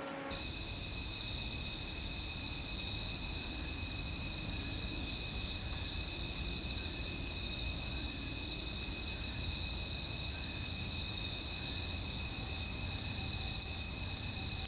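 Insect chorus of crickets: a steady high trill, with another insect's chirp repeating evenly about every second and a half.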